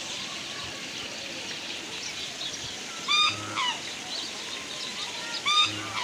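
Waterfowl giving loud honking calls: one a few seconds in and another near the end. The calls stand out over a steady wash of falling water and faint small-bird chirping.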